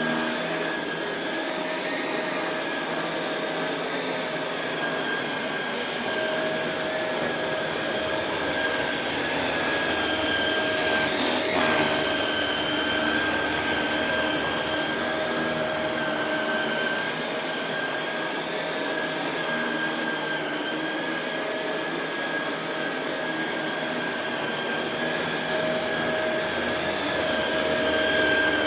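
Shark Rotator Pro Lift-Away NV500 upright vacuum cleaner running steadily over carpet, a constant motor whine over a rushing air noise, with one brief click about eleven seconds in.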